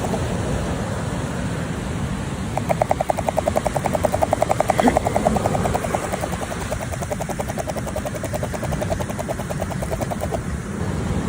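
Fishing reel being cranked quickly while a hooked shad is played in. It gives a fast, evenly pulsed whirr that starts a few seconds in and stops shortly before the end, over a steady rush of wind and surf.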